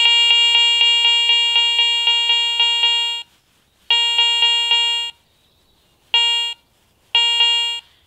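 Garrett ACE 400i metal detector sounding its target tone for a 2 Reichsmark silver coin passed under the coil: one buzzy fixed-pitch tone held for about three seconds with a light pulsing about four times a second, then three shorter bursts as the coin moves in and out of detection range.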